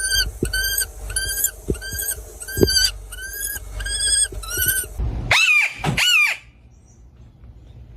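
Hawk calling: a run of about nine short, evenly repeated cries, then two longer cries that rise and fall.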